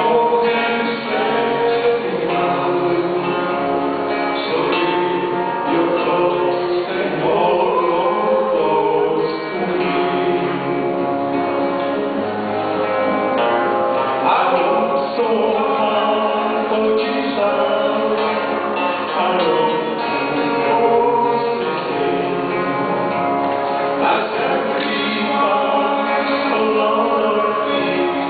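Gospel duet of two male voices singing with guitar accompaniment.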